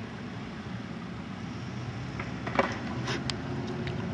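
Low steady outdoor rumble of wind on the microphone and distant traffic, with a few short clicks in the second half.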